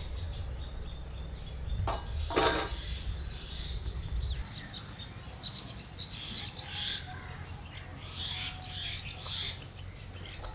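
Small birds chirping and twittering on and off, with a sharp click and then a short noisy knock about two seconds in.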